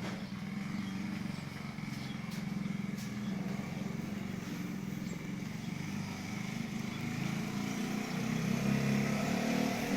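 Minimoto with a 190 cc Daytona single-cylinder engine running steadily, then revving and growing louder from about eight seconds in.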